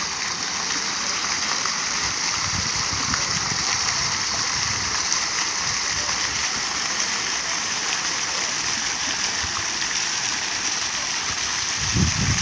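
Park fountain's several water jets splashing steadily into its pool: a constant rush of falling water, with a brief low rumble near the end.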